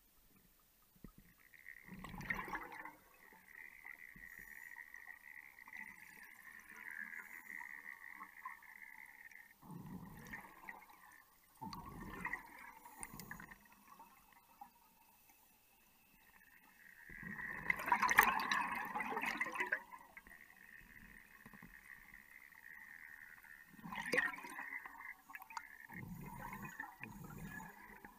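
Underwater gurgling and bubbling of gas and water around a cave diver's closed-circuit rebreather. It comes in repeated surges, the longest and loudest about two-thirds of the way through, over a fainter steady hiss.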